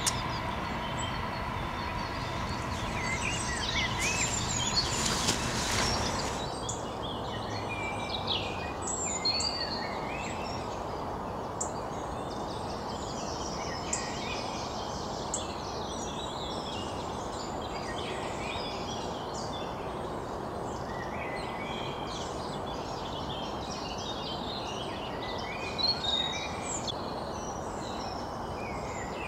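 Many small birds singing and chirping over a steady hiss of outdoor background noise, with a louder rush of noise about five seconds in.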